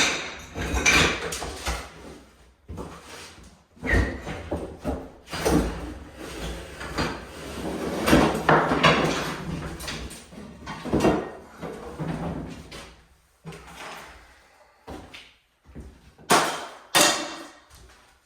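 Kitchen cabinets being pulled off the wall and handled: irregular knocking, scraping and clattering, with two sharp bangs near the end.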